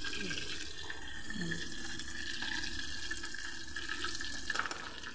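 Chicken pieces deep-frying in hot oil in a small pot, a steady sizzle and bubble; the chicken is cooked through and ready to come out.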